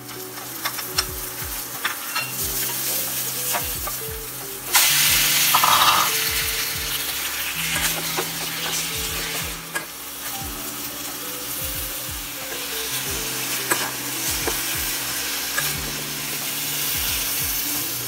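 Chicken pieces sizzling as they fry in a hammered aluminium pot, stirred with a spatula that clicks against the metal. The sizzle jumps sharply louder for about a second around five seconds in, then settles back.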